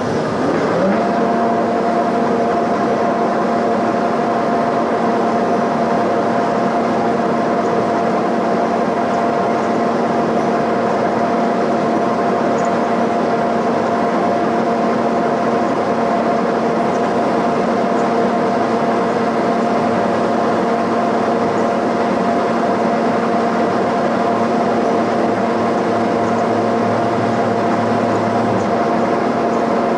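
Milling machine spindle motor spinning up to speed over the first second, then running with a steady whine while a Manley valve guide cutter machines down a cast iron valve guide in a cylinder head.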